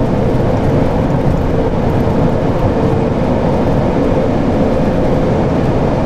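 Steady road and wind noise inside a Chevy pickup's cabin at highway speed, about 70 mph: a constant low rumble of the freshly trued tires on pavement, with a faint steady hum above it.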